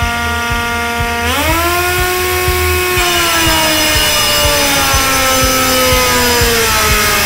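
Air motor of an Exact 360 Air pneumatic pipe saw running with a steady whine that jumps up in pitch about a second in, as the motor is unlocked for the plunge and the RPM limiter releases to full airflow, then slowly sinks in pitch as the blade takes the load of the cut. A regular low thud repeats about three times a second underneath.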